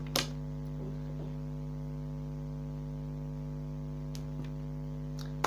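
Steady electrical mains hum, with one sharp knock a fraction of a second in and a few faint clicks near the end.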